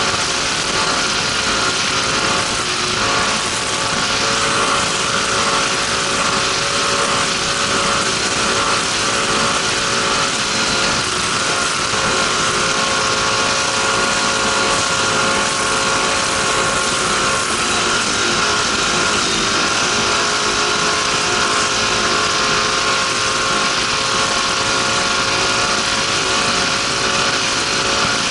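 Race boat's engine running steadily at high revs under way, heard from on board; its pitch dips briefly about two-thirds of the way through, then holds.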